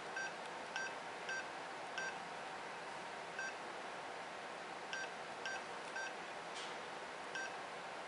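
Short high confirmation beeps from a Yaesu FT3D handheld radio, about ten at uneven intervals, each sounding as a key on its touchscreen keyboard is tapped to enter a memory name.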